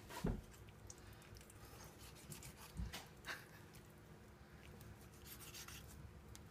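A dull kitchen knife cutting and scraping raw chicken meat away from the bone on a plastic cutting board: faint scattered rubbing and ticking, with a low thump about a quarter second in and another near three seconds in.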